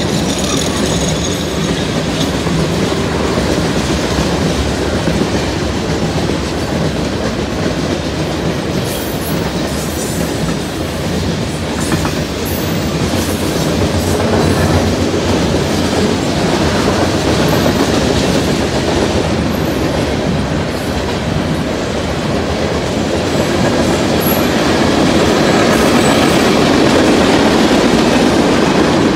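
A CN freight train's covered hopper and tank cars rolling past, with a steady noise of steel wheels on rail that grows a little louder near the end.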